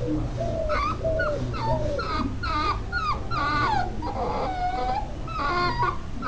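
Puppy whimpering and whining: a quick string of short, high-pitched cries, each bending in pitch.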